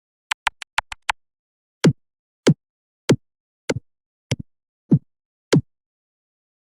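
Edited cartoon sound effects: six quick sharp clicks in the first second, then seven short blips at an even pace, each dropping steeply in pitch.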